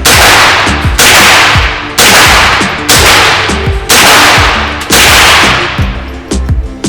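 .22 LR rounds fired from an AR-style rifle with a CMMG .22 LR conversion kit, six shots at about one a second, each sharp crack ringing off for most of a second, with a pause before the next shot near the end.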